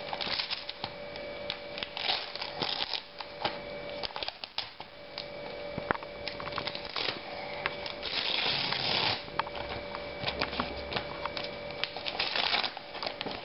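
Gift-wrapping paper on a present crinkling and tearing as a small child unwraps it: scattered rustles and small rips, with one longer tear about eight seconds in.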